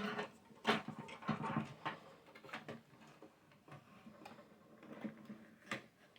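Irregular clicks, taps and rustles of computer parts being handled and fitted into a small Meshroom S PC case, with a few sharper knocks.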